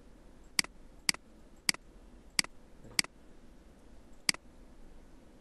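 Computer mouse clicking six times, single sharp clicks spaced irregularly about half a second to a second apart.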